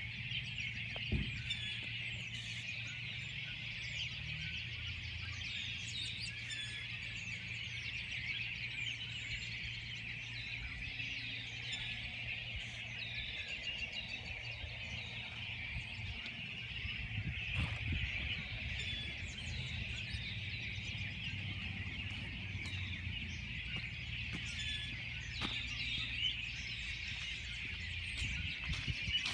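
A dense, continuous chorus of many birds chirping at once, with scattered higher single calls over it, and a low steady hum underneath.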